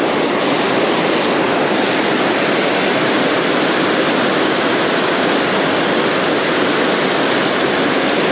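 Fast, heavy river current rushing over a rocky riffle and ledge: a loud, steady hiss of moving water.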